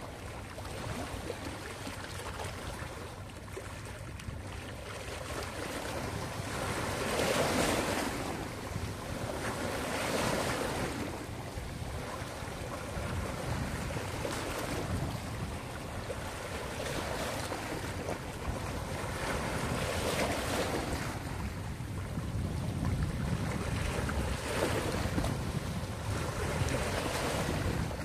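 Small sea waves washing in over rocks and splashing among them at the shoreline, the sound swelling with each wash every few seconds and ebbing between.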